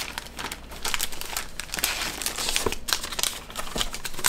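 Packaging crinkling and rustling as a handkerchief packet is handled and opened, an irregular run of crackles.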